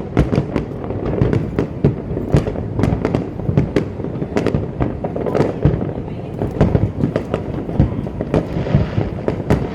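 Aerial fireworks display: a rapid, irregular series of sharp bangs, several a second, over a continuous rumble of bursts.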